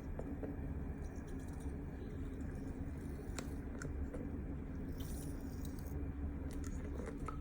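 Steady low hum with scattered small clicks and rustles from objects being handled.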